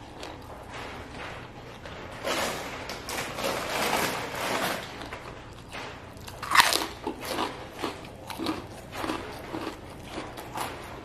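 Close-miked crunching and chewing of raw vegetables. A dense stretch of crunchy chewing runs from about two seconds in. A single loud, sharp bite comes at about six and a half seconds, followed by a run of shorter chewing crunches.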